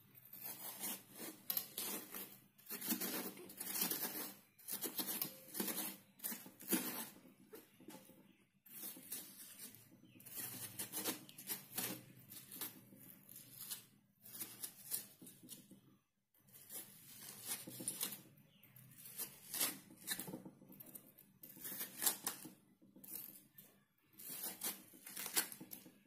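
Metal spoon scraping and scooping the flesh out of a halved watermelon rind, an irregular run of scraping strokes with short pauses.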